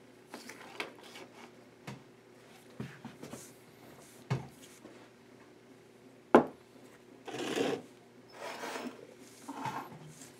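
Handling noises: light taps and scrapes of a swivel knife and its leather strop, a sharp knock about six seconds in, then several short rubbing sounds of cloth against the microphone as the camera is moved.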